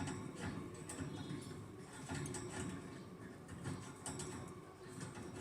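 African lovebirds giving short, high-pitched chirps, scattered irregularly, over a low background rumble.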